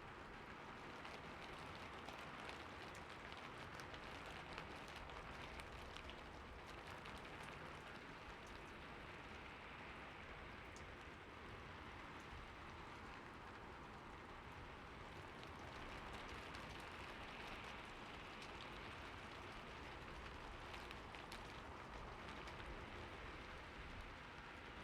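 Steady rain falling, an even hiss of drops with scattered sharper drop taps.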